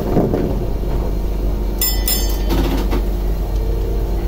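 Toden 7700 series tram running along street track, heard from inside near the driver's cab: a steady low rumble of motors and wheels on rail. Two sharp clicks close together about two seconds in.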